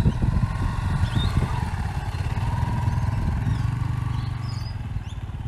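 Yamaha XT250's single-cylinder four-stroke engine running at low revs during a slow, clutch-controlled slalom through cones, with small throttle changes in the first couple of seconds, then steadier and a little fainter as the bike moves away.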